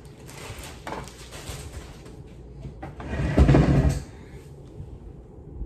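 Rummaging noises as things are shifted about while searching for a dropped battery, with a louder shifting noise lasting under a second about three seconds in.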